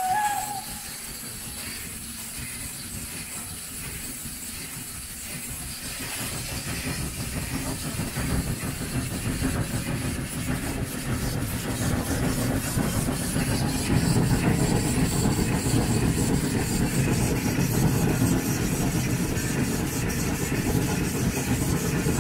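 Steam locomotive 414.096, an Austro-Hungarian 0-8-0 of 1906, at close range. A steam whistle cuts off at the very start, then steam hisses steadily. From about six seconds in the engine gets under way, and a louder rumble of exhaust and escaping steam builds and holds as it runs.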